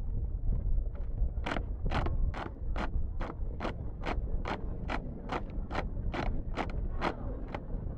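A marching squad's footsteps striking asphalt in unison, as sharp, evenly spaced steps about two a second. The steps come in strongly about a second and a half in and keep time until near the end.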